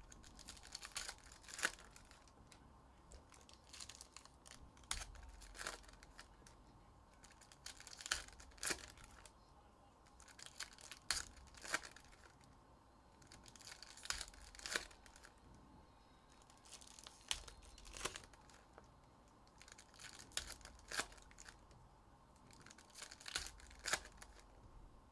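Foil trading-card pack wrappers being torn open and crinkled, one pack after another, with a short burst of crackling about every three seconds.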